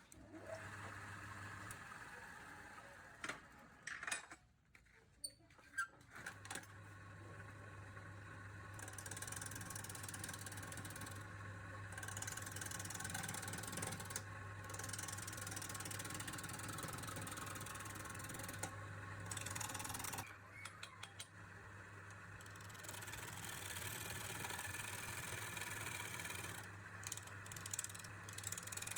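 Wood lathe running with a steady motor hum, while a turning tool cuts the spinning wood in stretches that start and stop, with a few sharp clicks a few seconds in.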